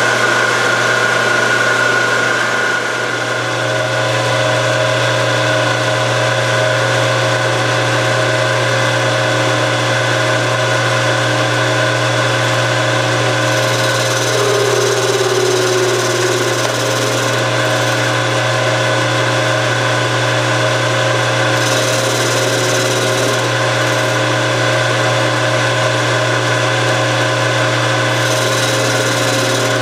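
Small bench lathe running steadily, its motor and drive giving a constant hum and whine while a tool faces the end of a metal tube. A higher, hissing cutting noise comes in three times, about fourteen, twenty-two and twenty-nine seconds in.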